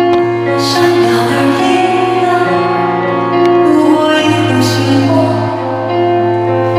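Live concert music: long held chords over a bass line that changes note twice, with a high male voice singing.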